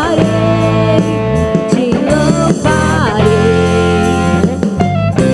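A band playing the instrumental opening of a worship song: guitar lead lines that bend in pitch over sustained chords and bass.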